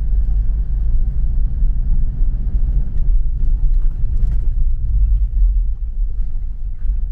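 Car driving on an unpaved dirt road: a steady low rumble of tyres and engine.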